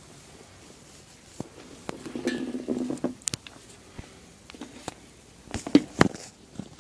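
A sleeper snoring: one snore lasting about a second, starting about two seconds in. Scattered light clicks and knocks run through it, with the loudest knocks near the end.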